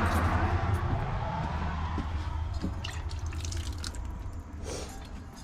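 Water pouring into a container, the flow slowly dying down to scattered drips.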